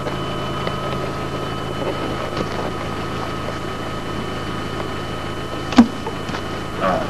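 Steady hum of a car heard from inside the cabin, with a sharp click about six seconds in.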